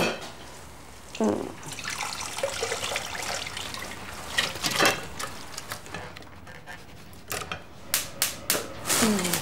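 Roasting-pan juices poured through a metal conical sieve into a glass measuring jug, a trickling splash of liquid. A knock as the sieve is set on the jug at the start, and a run of sharp metallic clinks near the end.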